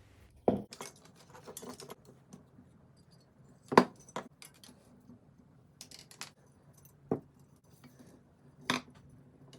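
Small metal hand-plane parts clinking and knocking against each other while wire is wrapped around them: a series of scattered sharp clinks, the loudest about four seconds in.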